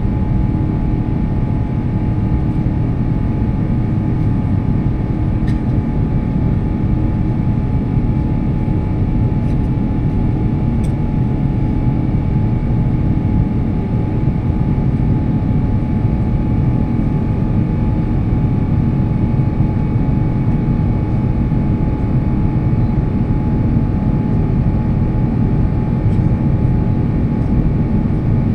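Steady cabin noise of an Airbus A350-900 climbing after take-off, heard beside the wing: its Rolls-Royce Trent XWB turbofans and the airflow make a deep, even rumble with a steady whine above it.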